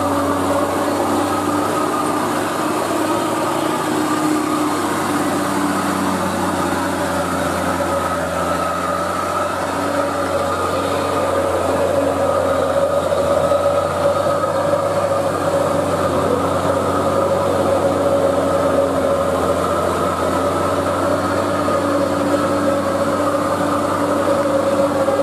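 Heavy truck's diesel engine running under load on a climb, a steady drone whose pitch wavers only slightly.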